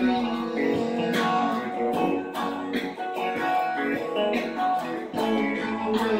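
Electric guitar being strummed, with chords ringing between strokes that fall about once a second.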